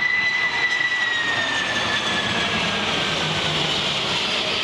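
Boeing 747-400's four jet engines during a low flypast: a steady rush of engine noise with a high whine on top. About a second in, the whine begins to slide down in pitch as the airliner goes by.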